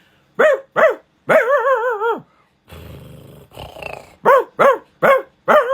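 A person imitating a big dog with their voice: two short barks, a long wavering drawn-out bark, a low growl, then three quick barks and another long wavering one near the end.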